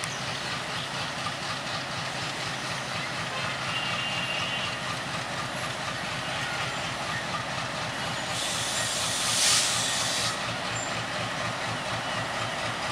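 Diesel-electric locomotive hauling a passenger train slowly past, its engine giving a steady low drone. About eight seconds in, a hiss of released air sounds for about two seconds and is the loudest thing heard.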